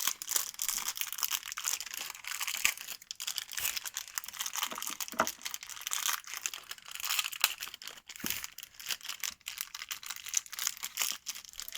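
Packaging of a compatible ink cartridge being opened by hand: continuous crinkling and crackling with tearing and small sharp clicks.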